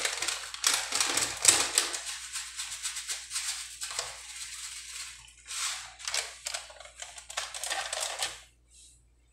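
A sachet of Magic Sarap seasoning granules shaken over a steel wok: the plastic packet crinkles and the granules rattle and patter in quick strokes, densest in the first two seconds, then in shorter, thinner bursts that stop about a second before the end.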